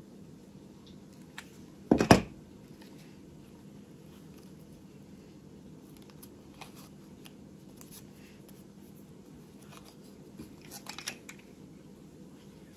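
Paper hearts and card being handled and pressed together, making soft rustles and small clicks over a faint steady hum. A sharp double knock about two seconds in is the loudest sound.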